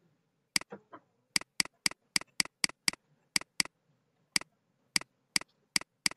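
Computer mouse button clicking sharply about fifteen times, in uneven quick runs, as on-screen PTZ direction arrows are clicked repeatedly.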